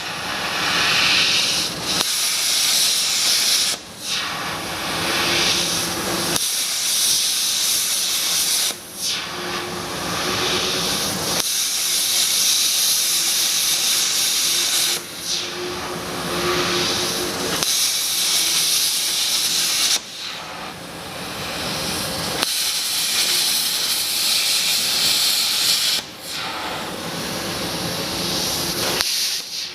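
Hypertherm XPR300 plasma torch on a CNC plasma table cutting: a loud, steady hiss that stops briefly and starts again every few seconds as the arc goes off between cuts.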